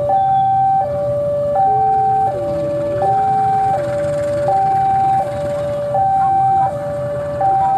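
Electronic two-tone warning alarm alternating regularly between a higher and a lower tone, each held about three quarters of a second, sounding as a KAI diesel locomotive approaches. The locomotive's engine rumbles low underneath.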